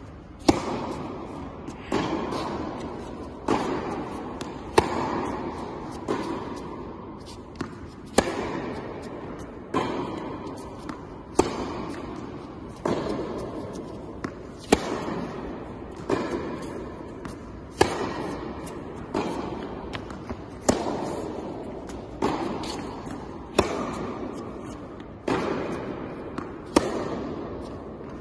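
Tennis rally on an indoor court: the near player's racket strikes the ball with a sharp crack about every three seconds, with softer ball bounces and far-side hits in between, each echoing around the large hall.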